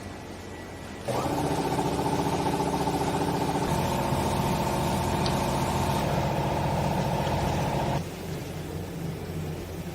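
Vertical baler's hydraulic power unit: the motor hums steadily, then from about a second in runs loud under load with a pitched pump whine for about seven seconds, cutting back to the quieter hum near the end.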